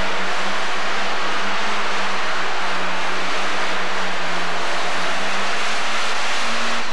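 Pro Stock pulling tractor's turbocharged diesel engine running loud, a steady drone with a dense hiss over it; the engine note sags slightly about halfway through and climbs again near the end.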